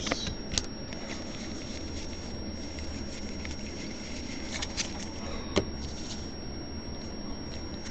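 Stack of 2015 Bowman Draft baseball cards being leafed through and slid between the hands: soft steady rustling of card stock, with a few sharp flicks as cards snap past.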